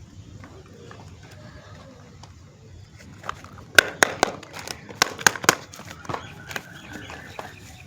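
Soap packaging being handled and opened: a quick run of sharp crackles and clicks, loudest around the middle, over faint background ambience.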